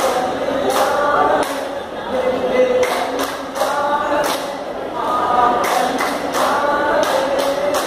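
Vattappattu, the Mappila group song of Kerala: a group of male voices singing unaccompanied, with sharp hand claps from the kneeling group in a patterned rhythm, about one to three claps a second.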